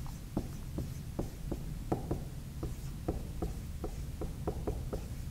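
Dry-erase marker writing numbers on a whiteboard: an irregular run of short, quick strokes and taps, a few each second, over a low steady room hum.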